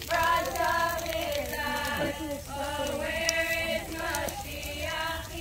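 A group of girls singing a song together, with long held notes that slide between pitches.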